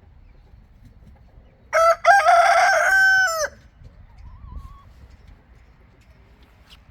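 A rooster crowing once, about two seconds in: a short first note, then a long held call that drops away at the end. A fainter, short chicken call follows.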